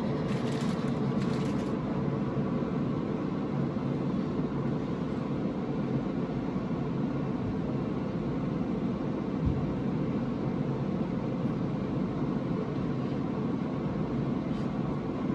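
A steady low machine hum runs throughout, with brief rustling in the first two seconds.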